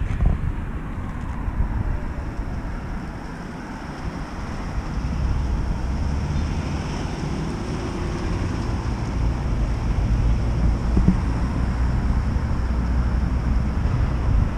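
Road traffic: a steady low engine rumble with road noise, growing louder about five seconds in.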